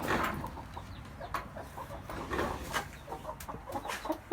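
Domestic hens clucking softly, with a few light clicks and rustles.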